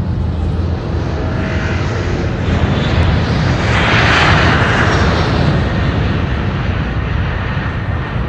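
Jet airliner fly-by sound effect played through an arena's sound system: a rushing jet noise that builds to its loudest about four seconds in and then slowly fades.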